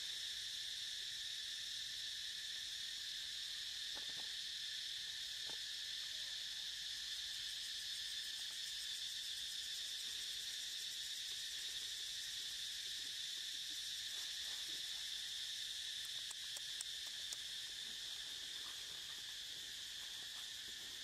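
Steady, high-pitched chorus of insects, several tones layered without a break, with a few faint brief sounds now and then.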